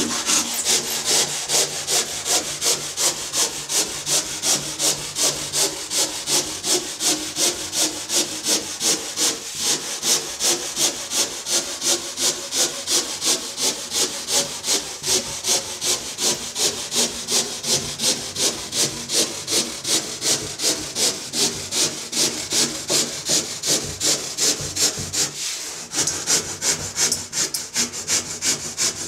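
Stanley SharpTooth handsaw cutting through a foam surfboard blank, held straight up and down along the template line: a fast, even run of hissing rasping strokes, about two to three a second, with a brief pause near the end.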